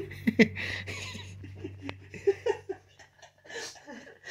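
Soft laughter and giggling in short bursts, over a low steady hum that fades out about halfway.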